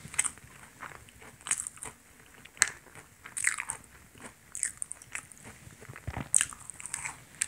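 Close-up eating sounds of a fried streusel bun (twigim soboro): its crisp, crumbly fried crust crunches in irregular bites, with chewing between them.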